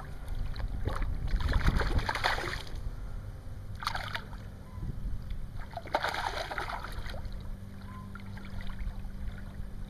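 Hooked largemouth bass thrashing at the surface, throwing up splashes in three bursts: about a second in, about four seconds in, and about six seconds in. A faint low steady hum runs under it from about seven seconds in.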